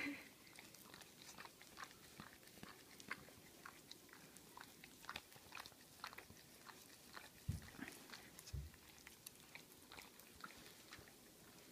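German Shepherd Dog licking ice cream from a cup: faint, irregular wet lapping and smacking clicks, a few per second. Two low thumps sound about seven and a half and eight and a half seconds in.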